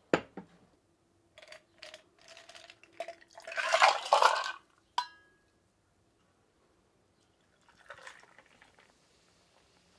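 Shochu poured from a small stainless steel pitcher into a glass mug, splashing loudly for about a second, after a sharp knock and a few clinks. A sharp ringing clink of metal on glass follows, and near the end carbonated Hoppy is poured from a glass bottle into the mug, more quietly.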